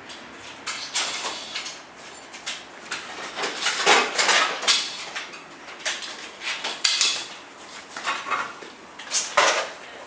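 Irregular light metallic clatter and knocks of aluminium profile pieces and fittings being handled and set down.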